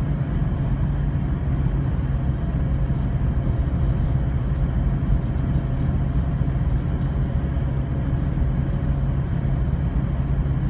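Car driving steadily along a road, heard from inside the cabin: a constant low engine hum under even tyre and road noise.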